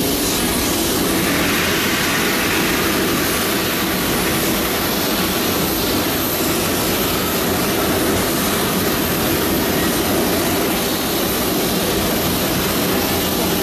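Boeing 737 freighter's jet engines running steadily on the apron, a constant even roar and hiss with no rise or fall.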